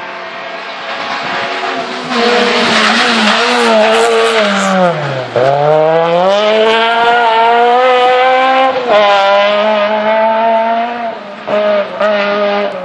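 Rally car engine passing at full stage speed: the revs fall as it slows for a junction, then climb hard as it accelerates away, with a gear change about nine seconds in, before it fades out.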